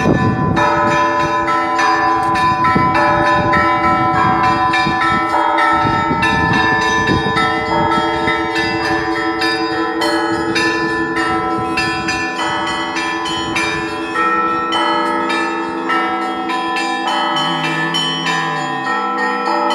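Church bells ringing a peal: many bells of different pitches struck in quick succession, their tones ringing on and overlapping. The heavy low strikes thin out about halfway through while the higher bells keep going.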